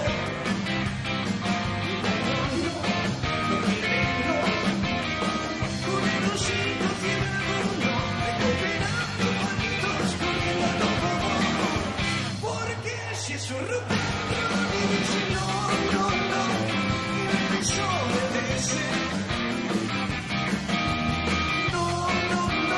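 Rock band playing live, with electric guitar, bass and drums. About twelve seconds in, the band stops for a moment, leaving only a low held bass note, then the full band comes back in.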